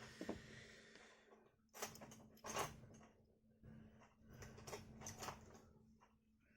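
Faint small clicks and scratches of a small screwdriver working screws into a smartphone's frame, in a few scattered bursts.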